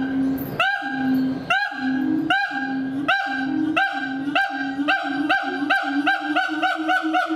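Siamang calling: a loud series of short rising barks over a steady low hum, about one a second at first and speeding up to about three a second near the end. It is the kind of loud call a mated pair seems to use to claim territory.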